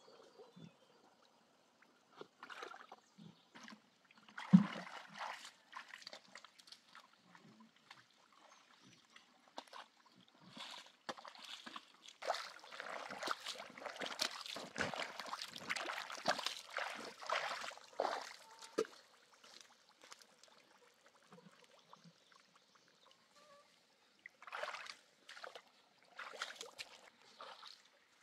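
Hands groping through wet mud and shallow pond water, sloshing and splashing in irregular bursts that are busiest in the middle. A single sharp knock about four and a half seconds in is the loudest sound, and a few separate splashes come near the end.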